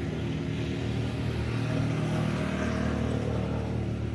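Steady hum of a motor vehicle's engine, swelling a little in the middle.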